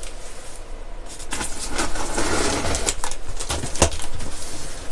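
Utility knife slicing through the packing tape and cardboard of a box: bouts of rasping scratches with a few sharp clicks, the strongest near the end.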